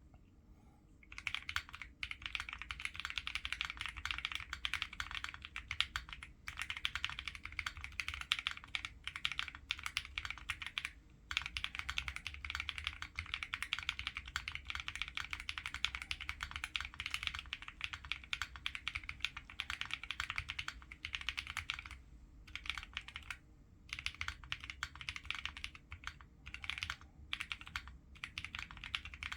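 Fully foamed Gingko65 mechanical keyboard with lubed Boba U4T tactile switches and PBT keycaps, typed on at a steady, fast pace. The typing starts about a second in and runs on with a few short pauses.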